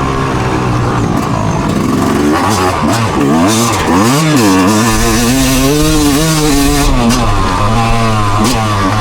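Engine running loudly and being revved, its pitch climbing and dropping several times.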